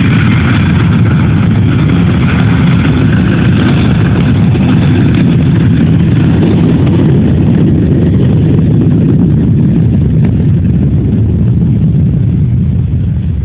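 A passenger plane's engines running at takeoff power: a loud, steady rumble that begins to fade near the end.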